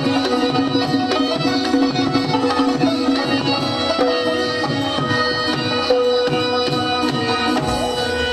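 Instrumental passage of Pashto ghazal music: tabla playing a steady rhythm of repeated bass strokes that slide down in pitch, over steady held melodic tones.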